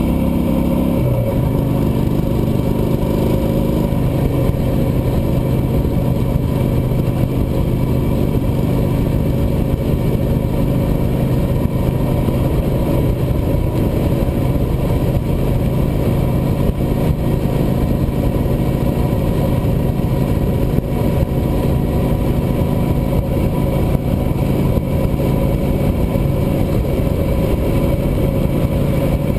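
Cruiser motorcycle engine running at road speed, heard from the bike itself. Its pitch shifts about a second in, then holds steady.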